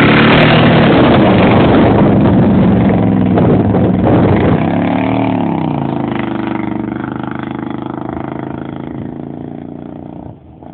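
Chevy half-ton pickup's engine through a true dual exhaust with catalytic converters, accelerating hard: revs climb and fall once at the start and again about five seconds in. It then runs steady and fades as the truck pulls away, dropping off sharply near the end.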